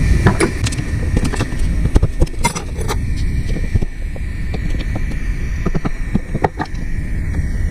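Scattered metallic clinks and knocks of engine parts being handled as head gaskets are pulled off a Deutz diesel engine, over a steady low background hum.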